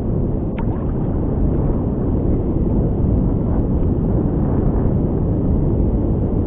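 Strong sea wind buffeting the microphone, a steady low rumble.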